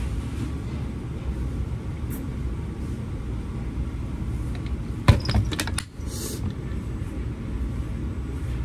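Steady low rumble of background machinery, with a brief cluster of sharp clicks and knocks about five seconds in.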